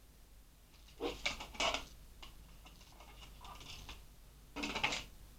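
Hands handling computer memory modules at the motherboard's slot retainer clips: a few short plastic clicks and rattles, about a second in and again near the end.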